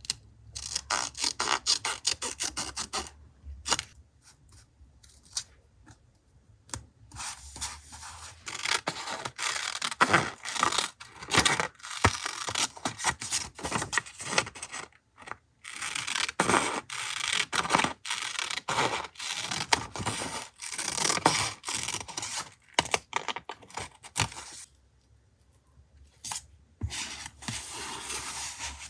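Paper handled close to the microphone: sheets rustling, scraping and tearing, with quick snips and clicks. There are two quieter stretches, one a few seconds in and one near the end.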